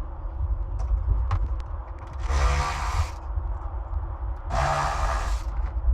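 A handheld power tool, such as a cordless drill or driver, runs in two bursts of about a second each, with a few light clicks before them over a low rumble.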